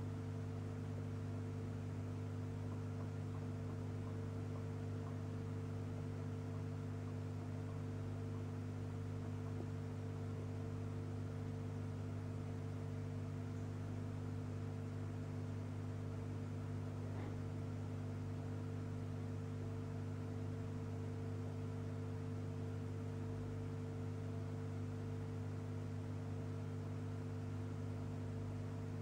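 Steady low electrical hum with a few fainter higher tones above it, unchanging throughout.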